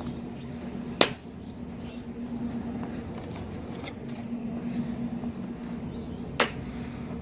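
Two sharp cracks, about five seconds apart, of raw eggs smashing onto a VHS tape lying on concrete.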